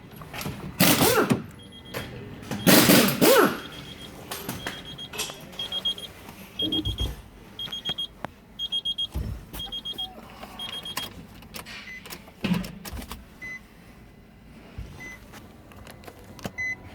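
Car's warning chime beeping: a steady run of short high beeps for several seconds, then a few slower single lower beeps. Two loud thuds come in the first few seconds.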